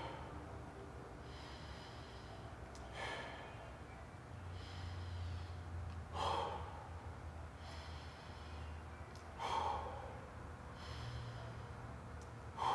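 A man breathing slowly and audibly through the nose while holding an exercise position, in and out with a breath about every three seconds.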